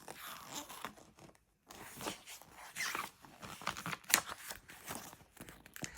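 Paper rustling and scraping as a book's pages are handled and turned, with a sharp click about four seconds in.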